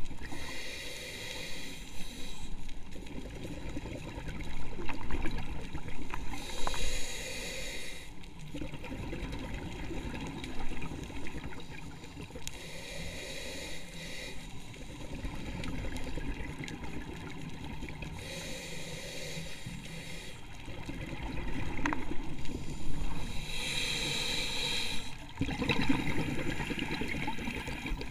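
A scuba diver breathing through a regulator underwater: a hiss on each inhale, then a bubbling gurgle of exhaled air. The cycle repeats about every five to six seconds, five breaths in all.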